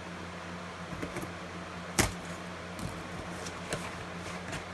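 A small cardboard box being opened and its contents handled: a few light clicks and rustles, with one sharper knock about two seconds in, over a steady low hum.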